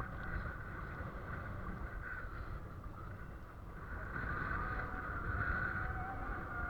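A motor running steadily with a whine, over a rumble of wind on the microphone; the whine drops away for a moment in the middle and comes back louder.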